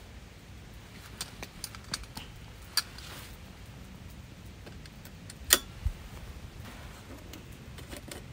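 Metal camping gear, a brass candle lantern among it, being set down and shifted on a small camp table: several light clinks and taps in the first three seconds, then a sharper knock about five and a half seconds in, followed by a smaller one.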